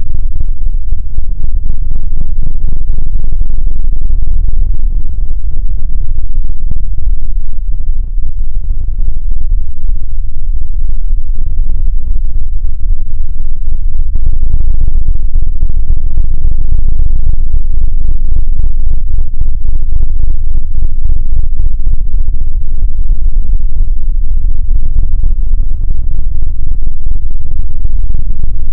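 A loud sound effect slowed down to a crawl: a steady, deep, distorted rumble near full loudness, with almost nothing in the upper range.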